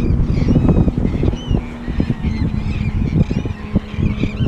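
A flock of birds calling, many short high calls overlapping throughout, over a loud low rumble and a faint steady hum.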